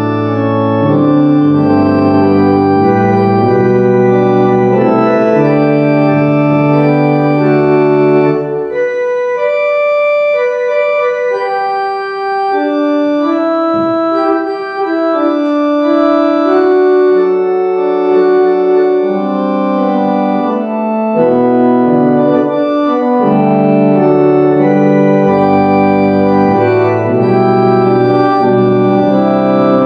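Organ playing slow, sustained chords. The low bass notes drop out for several seconds partway through, leaving only the upper parts, then come back in.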